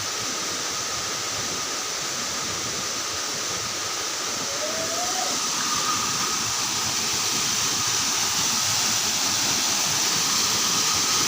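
Waterfall rushing, a steady roar of falling water that grows slightly louder in the second half.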